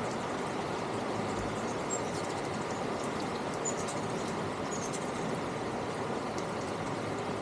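Steady outdoor background noise, with a few short, high chirps from hummingbirds at a feeder about two, three and a half, and four and a half seconds in.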